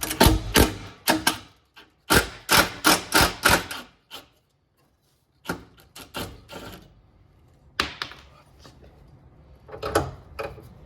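Rapid series of sharp knocks and taps from hand tools on the air conditioner's parts, in two quick runs at the start, then a few scattered knocks and a louder cluster near the end.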